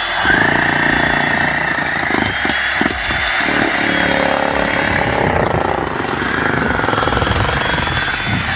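Electric demolition hammer breaking up a concrete roof slab, hammering steadily and loudly with a rapid rattle.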